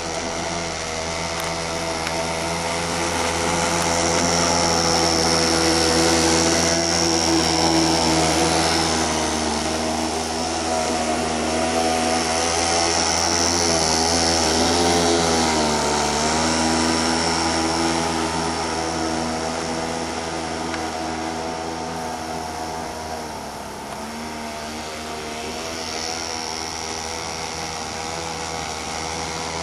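Small 25cc weed-wacker (string trimmer) engine driving a homemade boat, running steadily at speed. It grows louder over the first few seconds, dips briefly in pitch around the middle, and eases off somewhat later. The owner says it just needs more RPM.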